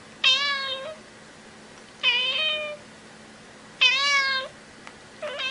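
Domestic cat meowing three times, about two seconds apart, then a quieter fourth meow starting just before the end.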